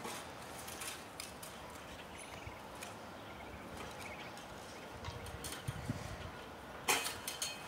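Scattered knocks and scrapes of shovels and rakes working bare soil, with one louder knock about seven seconds in.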